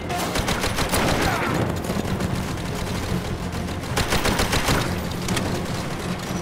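Automatic gunfire: rapid strings of submachine-gun shots, a dense burst in the first second or so and another about four seconds in.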